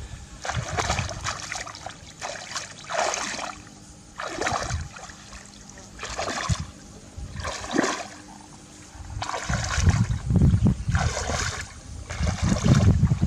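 Water splashing and sloshing in repeated strokes, about one every second or so, with heavier low thumping splashes near the end.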